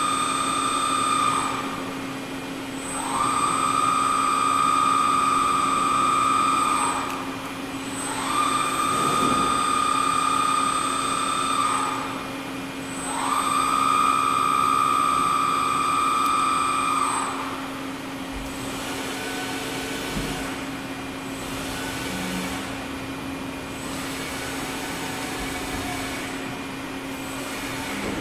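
Doosan DBC-130L-II CNC horizontal boring mill making rapid axis traverses. An axis-drive whine rises as the axis speeds up, holds, and falls away as it stops. One move ends about a second in, then three more follow, each about four seconds long. All of it sits over a steady low hum from the running machine, which carries on alone with fainter tones after the last move.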